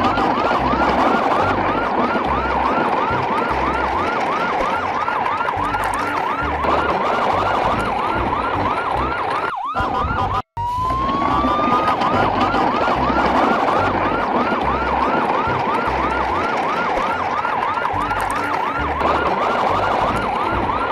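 Electronic siren sounding: a rising wail that switches to a fast yelp of about three cycles a second. It cuts out briefly about ten seconds in, then starts over with the same wail and yelp, over a low rumble.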